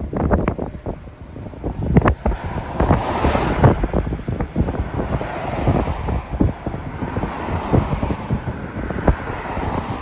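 Strong gusty wind buffeting the microphone in rapid low thumps, with a rushing of wind that swells about three seconds in and eases toward the end.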